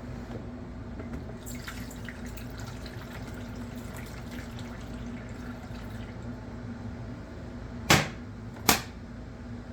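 Kitchen sink clean-up: faint water and small clinks over a steady low hum, then two sharp loud knocks near the end.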